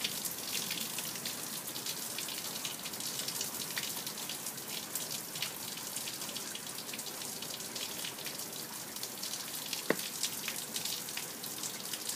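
Rain falling steadily, with many individual drops hitting close by, and one sharp tap about ten seconds in.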